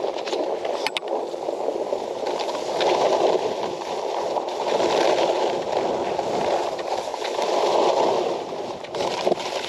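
Skis sliding and scraping over snow on a downhill run, a steady rushing noise that swells and eases every few seconds, with a couple of faint clicks about a second in.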